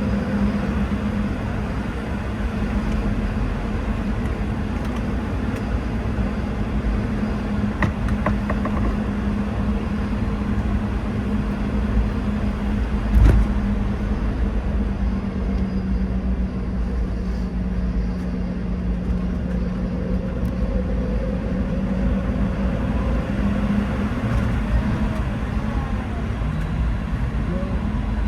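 Cabin noise of a Boeing 717 taxiing, its twin rear-mounted Rolls-Royce BR715 turbofans at idle: a steady hum with a low drone tone. A single thump sounds about halfway through.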